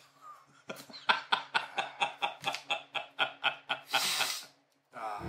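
A man laughing heartily in a quick run of ha-ha pulses, about four or five a second, that ends in a brief breathy intake about four seconds in.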